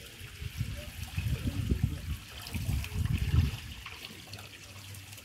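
Water poured in a steady stream into a large metal cooking pan, splashing and gurgling as the pool in the pan grows. The splashing is heaviest in the first half and eases off later.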